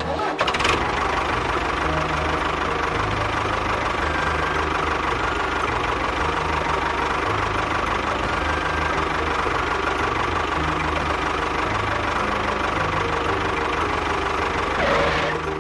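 An engine running steadily with a rough, knocking rumble. It starts and cuts off abruptly.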